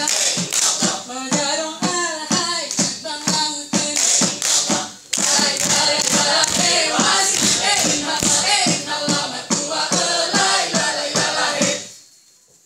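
Saman dancers chanting in unison while clapping and slapping their bodies in a quick, even rhythm of sharp hand strikes. The chant and the claps break off briefly about five seconds in and stop shortly before the end.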